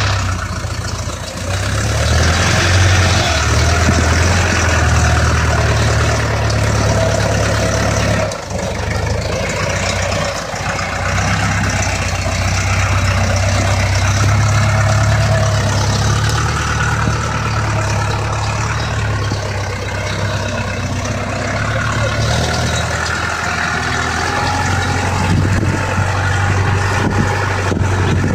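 SAME Explorer II 70 tractor's diesel engine running steadily, with a brief drop in level about eight seconds in.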